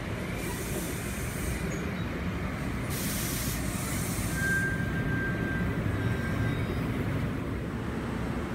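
New Jersey Transit train running on the rails with a steady low rumble, two spells of hiss, and a steady high-pitched wheel squeal for about two seconds midway.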